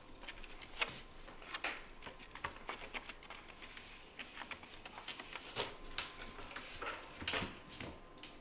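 Kittens play-fighting: a run of light, irregular taps and scuffles from their paws and bodies on the floor, with a few louder knocks.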